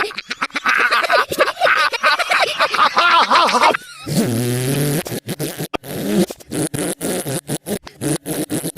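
Cartoon Minion voices played in reverse with reverb, high-pitched and choppy. About four seconds in comes a low, steady fart sound effect lasting about a second.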